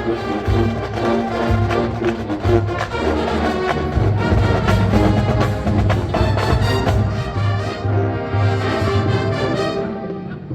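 Marching band brass and drums playing a funk tune with a steady, pulsing beat; the music drops briefly near the end.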